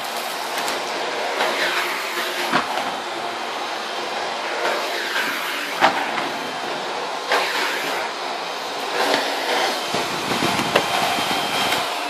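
Miele Complete C2 Powerline cylinder vacuum cleaner's 1600-watt motor running loud on a low suction setting as its floor head is pushed over a rug, with occasional sharp clicks of grit and kitty litter being sucked up.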